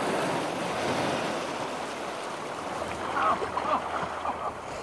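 Sea waves washing and splashing against shoreline rocks, a steady rushing wash. A few short wavering sounds come in about three seconds in.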